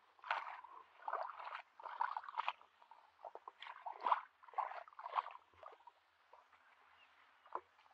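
Bare feet squelching and sloshing through shallow muddy water in a run of irregular wet steps. The steps die away about two-thirds of the way through, leaving one short sharp sound near the end.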